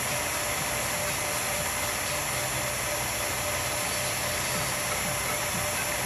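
Revere Model 85 8mm film projector running: a steady whir of its motor, fan and film mechanism, with a thin steady tone running through it.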